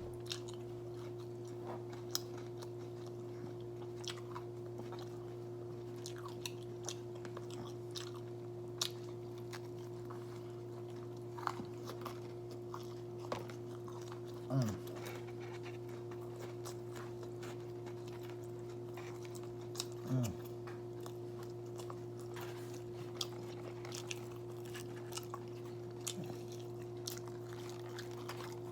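A person biting and chewing a crispy fried-chicken sandwich topped with Cheetos, with scattered small crunches, over a steady low hum. About halfway through and again about two-thirds through comes a brief sound that falls in pitch.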